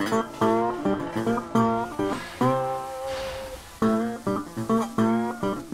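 Background music on acoustic guitar: a tune of plucked notes in a steady rhythm.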